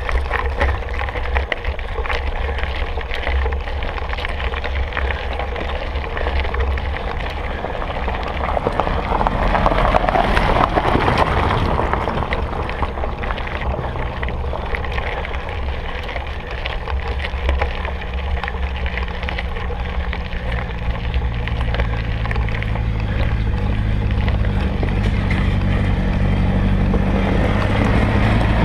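Wind buffeting a ride camera's microphone over a mountain bike rolling and rattling along a trail. In the last several seconds a steady low hum with several tones builds up and gets louder.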